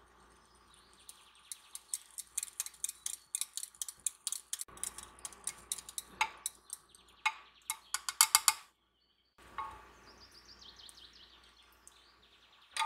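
Birds chirping, with a dense run of sharp clicks and ticks through the first two-thirds that stops abruptly.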